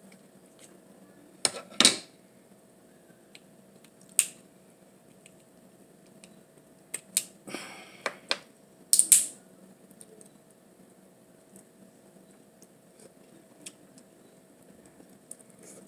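Eating a lobster meal: several short, sharp clicks and smacks of mouth and food sounds, spaced out, with quiet in between.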